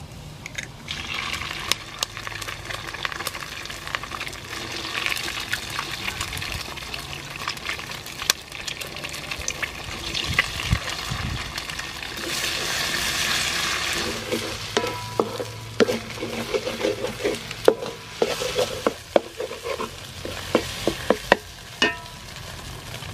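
Eggs sizzling as they fry in hot oil and garlic in a metal wok. From a little past halfway, a wooden spatula scrapes and knocks against the wok as the eggs are scrambled.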